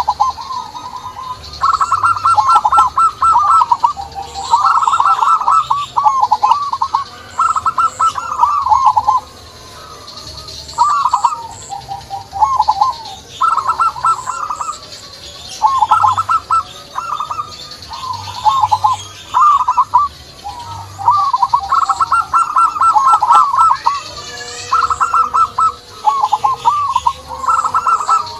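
Zebra doves (perkutut) calling: loud, repeated warbling phrases of one to two seconds each with short pauses between, over fainter high chirping.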